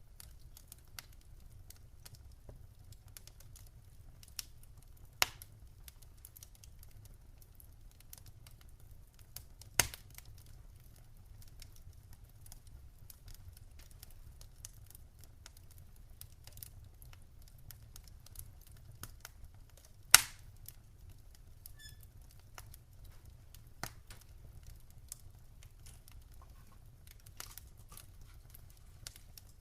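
Wood fire in a fireplace crackling, with many small scattered snaps and three loud pops about five, ten and twenty seconds in, over a low steady rumble.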